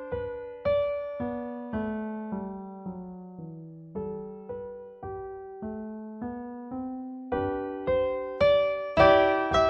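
Background music: a solo piano playing single notes a little under two a second. The melody steps downward, then climbs again and grows louder over the last few seconds.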